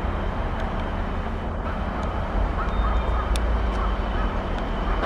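Red diesel shunting locomotive running at low speed as it approaches with a tank wagon: a steady low engine rumble with a hum, and a few faint short squeaks and ticks.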